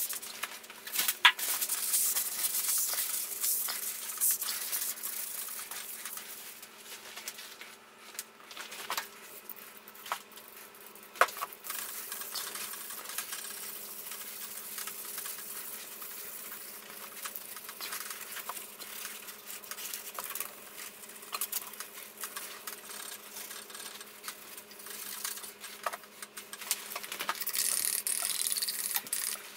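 Cloth and paper towel rubbing and wiping over the metal surfaces of a tilting T-slot milling table, a hissing rustle that swells and fades with each stroke, with a few sharp clicks of light knocks on the metal. A faint steady hum runs underneath.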